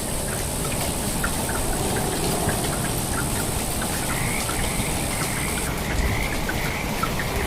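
Rain falling steadily, with many separate drops ticking on surfaces. A high, even hiss in the background cuts off a little before six seconds in.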